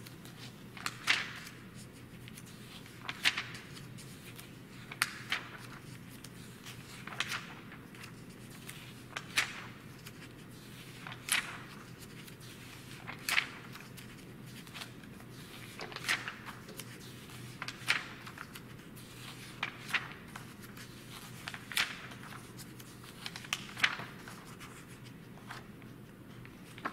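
Pages of a glossy print magazine being turned by hand, one quick papery flip about every two seconds, over a faint steady hum.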